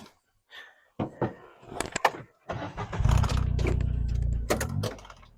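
A few clicks and knocks, then a Gator utility vehicle's engine starts about two and a half seconds in and runs steadily.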